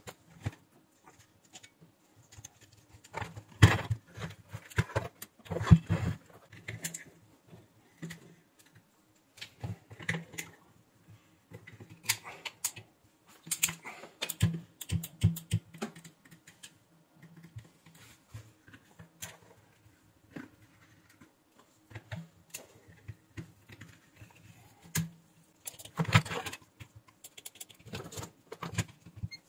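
Handling noise of a plastic bathroom scale and small tools on a workbench: irregular clicks, taps and knocks. Heavier clatter comes about four to six seconds in and again near the end.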